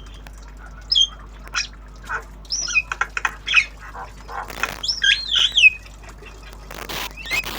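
Young Javan myna calling: a scattered string of short whistles and chirps, some sliding up or down in pitch, mixed with a few harsh, noisy squawks.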